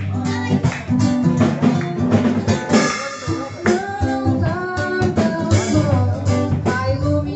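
A song played on strummed acoustic guitar, with a voice singing over it from about three seconds in.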